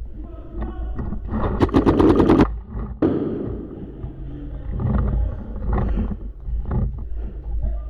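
Paintball marker firing a rapid string of about ten shots in under a second, followed about a second later by a single sharp smack.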